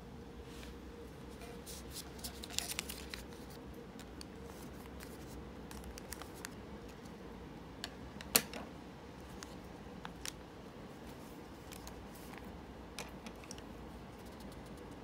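Folded origami paper handled and rustling, with scattered light clicks and taps as a pair of blue plastic-handled scissors is picked up. The sharpest click comes about eight seconds in.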